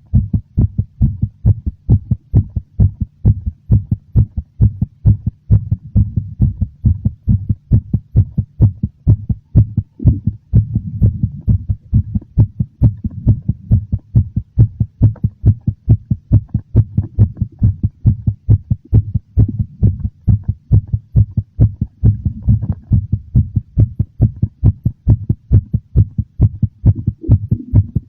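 Heartbeat pounding in a steady, even, slightly fast rhythm, each beat a short low thump.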